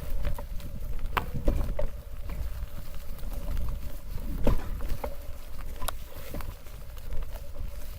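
Mountain bike rolling over a rough forest track: a steady low rumble with irregular sharp knocks and rattles as the bike goes over bumps.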